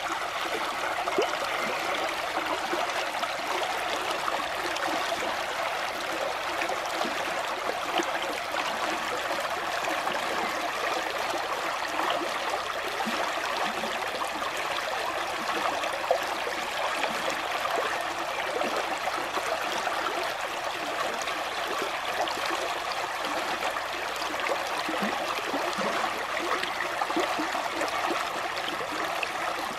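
Shallow creek water running over rocks: a steady rush of flowing water with small splashes.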